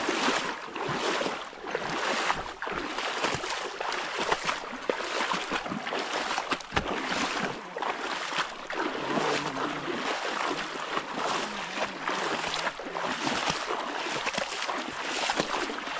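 Footsteps wading through shallow water, a splash and slosh with each stride in a steady walking rhythm.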